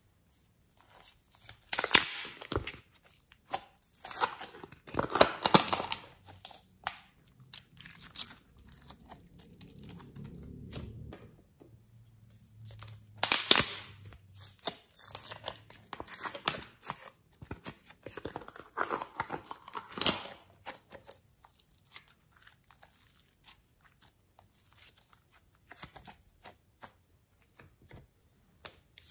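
Plastic slime tubs being handled and opened, and slime being scooped out and dropped into a bowl: irregular crinkling, crackling and short tearing sounds, a few of them louder.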